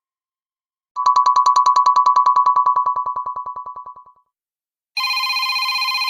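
Two Android phone tones played one after the other: a fast-pulsing electronic trill, about ten pulses a second, that fades out over about three seconds, then, after a short gap, a brighter, buzzier pulsing tone with several pitches that cuts off suddenly.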